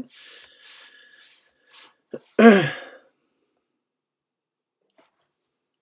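A man's faint breathy exhale, then about two and a half seconds in a short wordless vocal sound from him, falling in pitch, like a throat-clearing grunt. After it, only a few faint clicks.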